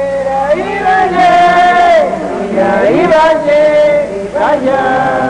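A voice chanting in long, drawn-out notes that hold and then slide between pitches, over a steady low hum.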